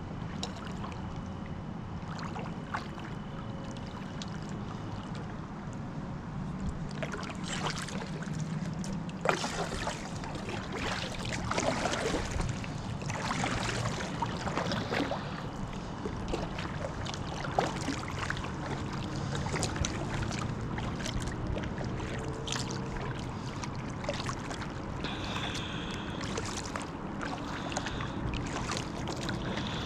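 Kayak paddling: paddle blades dipping, splashing and dripping in river water, with scattered sharper splashes and knocks, over a steady low rumble.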